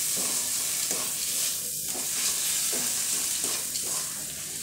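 Onion, tomato and ground-spice masala sizzling in oil in a metal kadai while a wooden spatula stirs and scrapes it, strokes about once a second. This is the masala being sautéed down (kosha) for dal fry.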